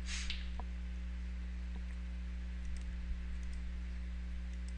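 Steady low electrical hum, with a few faint computer mouse clicks scattered through it and a short soft hiss right at the start.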